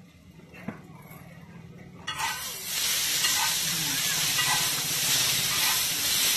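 Chowmein noodles and vegetables being tossed on a hot flat griddle. After a quiet start with a single click, a loud, steady sizzle starts suddenly about two seconds in as the noodles hit the hot surface.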